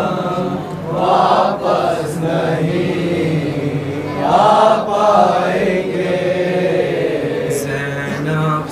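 Unaccompanied male voices chanting a noha, a Shia lament in Urdu, in long drawn-out sung phrases, one lead voice with others joining.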